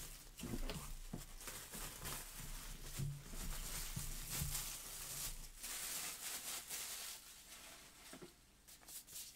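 Plastic shrink wrap being torn and pulled off a cardboard box, crinkling and crackling with many small snaps; it dies down over the last couple of seconds.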